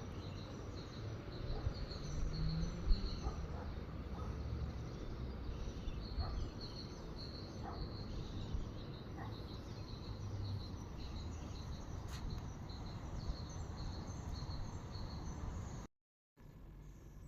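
Outdoor nature ambience: short high chirps repeat steadily over a low background rumble, and everything cuts out abruptly for a moment near the end.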